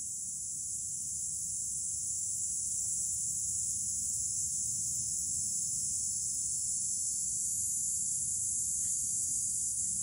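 Cicadas singing: a continuous, steady high-pitched buzz that grows louder over the first few seconds and then holds.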